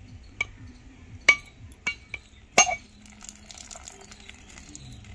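Whole coconut being struck to crack it open: five sharp, ringing knocks, the loudest about a second in and near the middle.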